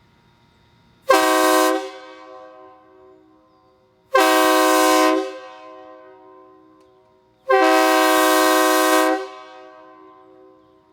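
Homemade PVC replica of a Nathan K124 three-chime train horn, blown three times, each blast longer than the last, the last about a second and a half. Each blast sounds a chord of D sharp, F sharp and C, and dies away in a lingering echo.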